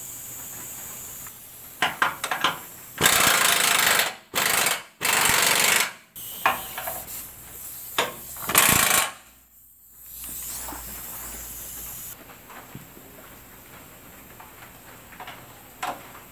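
Impact wrench run in several short bursts of up to about a second each, driving nuts onto the front-end crossmember mounting studs, with a few metallic clicks between the bursts.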